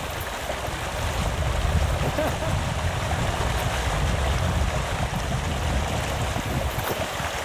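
A small Highland burn rushing steadily over stones, with wind rumbling on the microphone.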